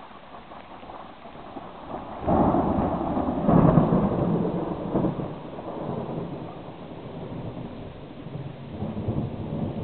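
Thunder breaks suddenly about two seconds in and rolls on in a long low rumble that slowly dies away, then swells again near the end, over heavy rain.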